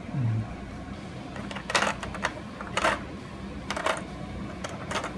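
Small plastic figure parts clicking and clattering against a clear plastic blister tray as they are picked up and put down, four sharp clatters about a second apart.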